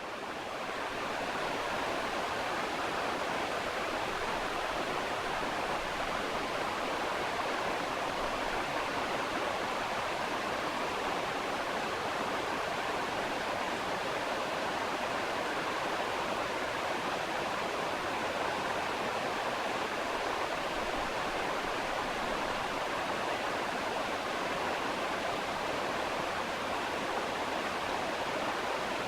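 Steady, even rushing noise like a waterfall or white noise, with no pitch or rhythm, standing in for the ultrasonic scaler's own sound, which is not heard.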